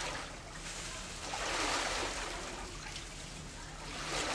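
Floodwater splashing and sloshing in swells, about one every two seconds, as rainwater is cleared out of a flooded house.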